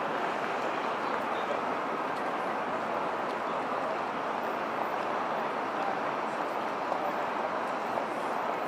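Steady city street ambience: a continuous, even wash of traffic noise.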